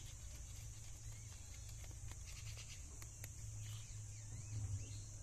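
Two rabbits chewing a dry papaya leaf: small, crisp nibbling clicks, with a quick run of them about two and a half seconds in. Behind it there is a steady low hum and a steady high hiss, and a few short chirps come near the end.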